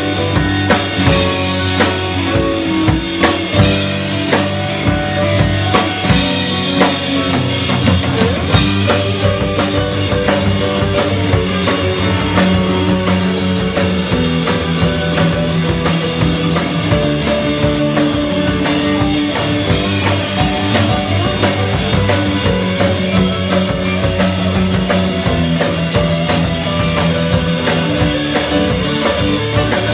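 Live rock band playing loud and full: drum kit, electric and acoustic guitars and bass, heard from close to the stage.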